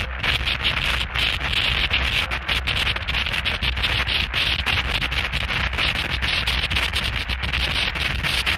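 Harsh noise music: a loud, dense wall of distorted static, strongest in the upper-mid range and flickering with rapid crackles and brief dropouts, over a steady low hum.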